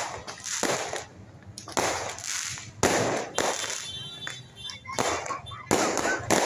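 Aerial fireworks bursting: about eight sharp bangs at uneven intervals, each fading over about half a second.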